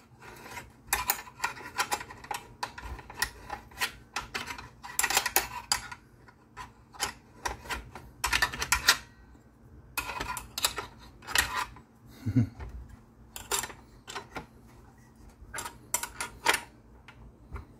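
Metal parts of a Craftsman circular saw being handled and fitted together: irregular clicks, taps and short scrapes.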